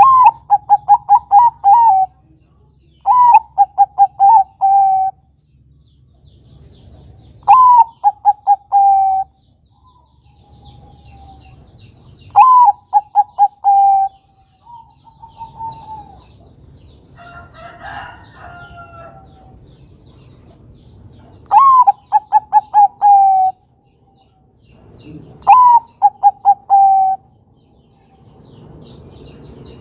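Male zebra dove (perkutut) singing its staccato cooing song six times: each phrase is a high opening note followed by a quick run of five or six coos. Other small birds chirp faintly in the background.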